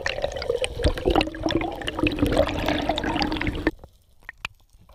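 Underwater sound picked up by a diver's camera: a rushing water noise full of sharp clicks, which drops away suddenly about three-quarters of the way through, leaving only faint clicks.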